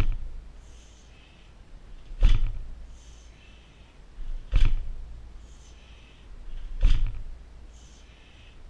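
Bare fists clasped together and driven down onto a 60 kg heavy bag in overhead sledgehammer strikes: four heavy thuds with a deep low end, about two and a quarter seconds apart. Hissing breaths are heard between the strikes.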